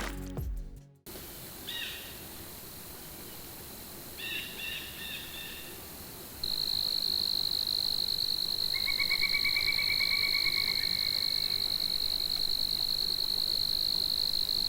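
Small animal calls, frog-like: short pulsed high trills, then a steady unbroken high-pitched tone from about six seconds in, with a rapid pulsed trill over it for about two seconds.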